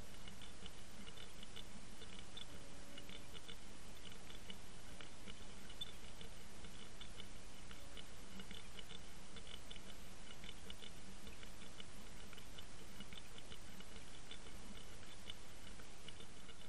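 Audio picked up by an underwater camera towed on a trolling line: a steady rush of water with rapid, irregular clicking and ticking.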